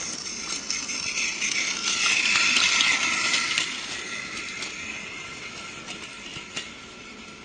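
A small mechanism whirring with light clicks. It swells to its loudest about two seconds in, then fades away.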